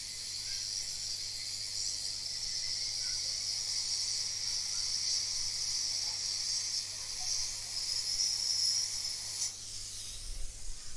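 Steady high hiss while the Super IO chip's pins are reflowed with solder and flux. It cuts off about nine and a half seconds in.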